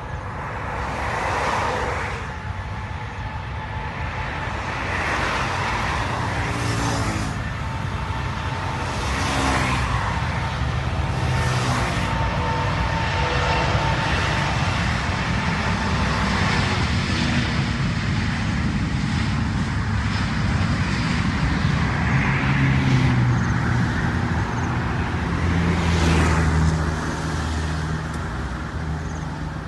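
Vehicle engines running, a continuous low rumble with repeated swells in level.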